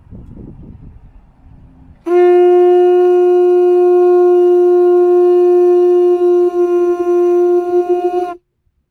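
A conch shell horn blown in one long, steady note for about six seconds, starting about two seconds in. The note wavers near the end, then stops abruptly. Before it, low wind noise on the microphone.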